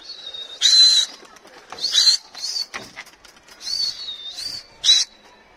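A high, thin whistle that wavers in pitch, with loud breathy hissing bursts about a second in, at about two seconds and near the end, as a pigeon is thrown up to fly.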